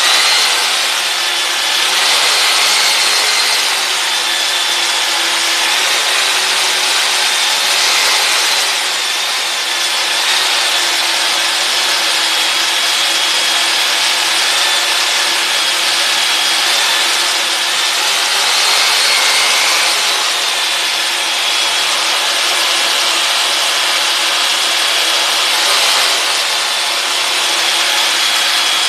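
Black & Decker electric jigsaw running steadily, its reciprocating blade driving a golf ball glued onto it as a percussive massager on the leg. A loud, even buzz with a slightly wavering high whine.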